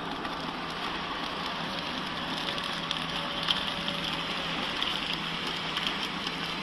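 YX-450A horizontal flow pack wrapping machine running empty, drawing packaging film through without product during a test run: a steady mechanical running noise with a low hum.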